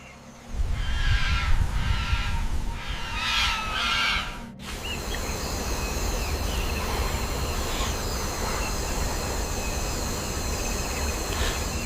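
Rainforest soundscape: a run of repeated bird calls for the first four seconds or so, then after a sudden cut a steady jungle drone of high held tones and hiss over a low rumble.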